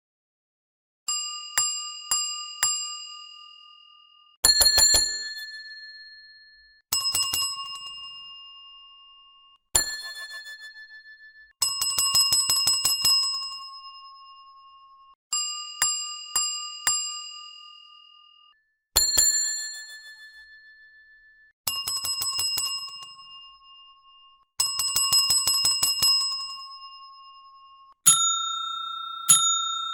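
Hotel reception desk bell struck again and again in separate bursts: some a few spaced dings, others quick runs of rapid strikes, each burst ringing out and dying away before the next. Near the end a bell of a different pitch is struck twice.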